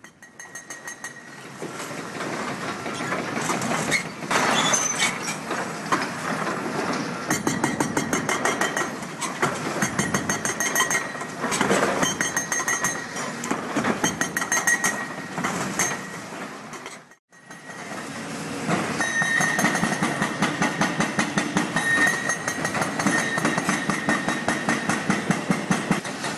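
Hydraulic breaker on an excavator hammering reinforced concrete, a fast, even train of blows. The sound cuts out for a moment about two-thirds of the way through and then resumes.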